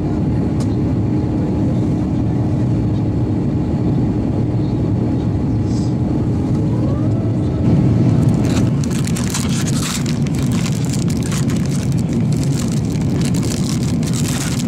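Airbus A350-900 cabin noise as its Rolls-Royce Trent XWB engines spool up: a rising whine about seven seconds in, then a louder rushing rumble with light rattles, the start of the takeoff roll.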